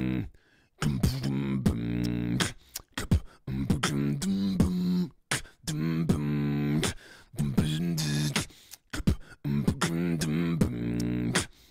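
Beatboxing into a close microphone: repeated held, low-pitched vocal bass notes of about a second each, punctuated by sharp mouth clicks and percussive hits.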